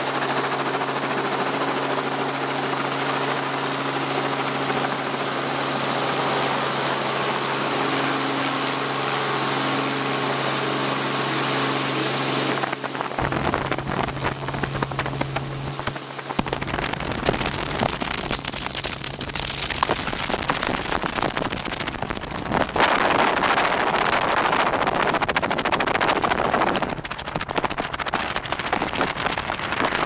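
Helicopter engine and rotor heard from inside the cabin. It runs with a steady whine on the pad, then lifts off about 13 seconds in, when the steady tones give way to a rougher, fuller rotor and wind noise in flight.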